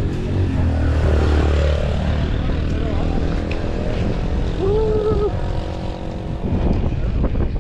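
Motor vehicle engine running with a steady low hum and road rumble, heard from inside the vehicle, with faint voices now and then.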